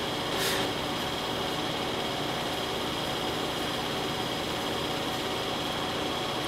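Electric potter's wheel running with a steady hum, and a brief scrape about half a second in.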